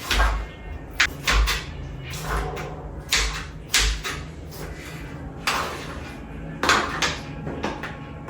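Kitchen clatter while cooking: about eight irregular knocks and bangs, some with a deep thud, as cupboards and cookware are handled.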